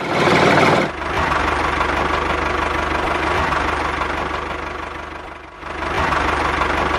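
Small electric motor of a handmade miniature toy tractor running steadily with a gear whir. It is loudest for about the first second and dips briefly near the end.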